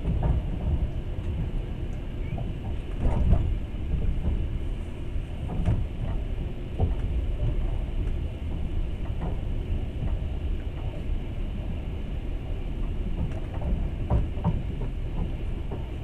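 Passenger train running along the track: a steady low rumble with irregular knocks and clatter from the wheels and carriage.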